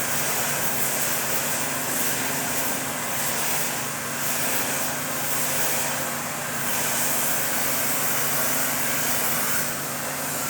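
A steady mechanical noise: a low, even hum under a loud hiss, with no breaks.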